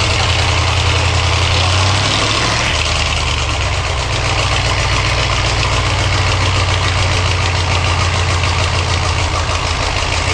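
A large engine running steadily with a deep, continuous hum and no change in speed.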